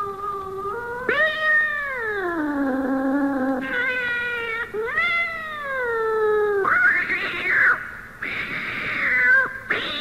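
Cats fighting: long, drawn-out yowls that rise and then sink in pitch, about a second in and again about five seconds in, then harsher, noisier screeching from about seven seconds in.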